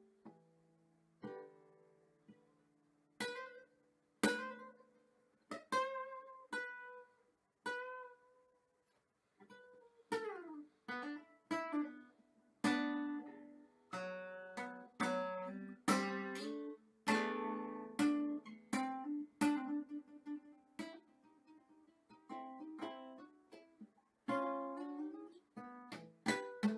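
Acoustic guitar played solo and fingerpicked: single plucked notes and chords ringing out and dying away. There is a short pause about eight seconds in, and the playing grows busier after it.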